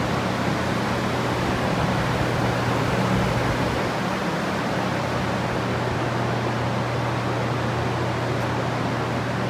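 Many drying fans and a large dehumidifier running together: a dense, steady whoosh of moving air with a constant low hum underneath. It is the noise of a flooded building being dried out to bring the humidity down and avoid mold.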